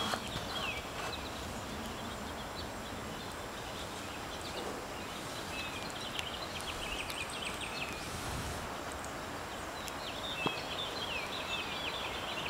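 Steady outdoor background hiss with many short, high chirps coming in clusters, like small birds twittering: a few near the start, more in the middle and a denser run near the end.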